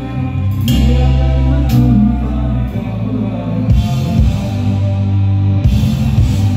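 Live stage music: a male singer singing into a microphone over an amplified band with heavy bass and a steady beat about once a second.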